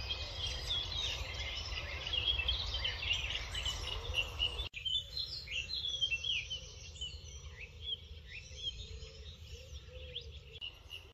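Several wild birds chirping and singing, many short overlapping calls, over a low rumble. The mix of songs changes about five seconds in.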